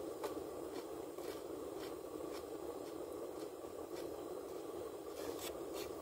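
A fork scraping and clicking against food in a takeout container, a scatter of light scrapes with two louder ones near the end, over a steady background hiss inside a car.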